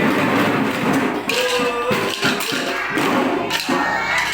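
Children's drum band drums struck with sticks in basic practice strokes: a dense, uneven clatter of many hits at once, with a short held tone a little over a second in.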